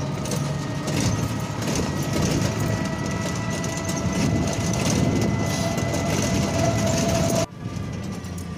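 Rumbling road and wind noise from riding in an open-sided rickshaw, with a faint steady whine over it. The noise drops suddenly about seven and a half seconds in, then continues more quietly.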